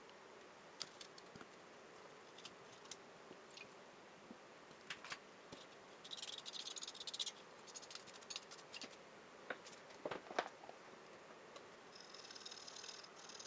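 Faint handling noises: scattered sharp clicks and taps, with short stretches of scraping or rustling about six seconds in and again near the end.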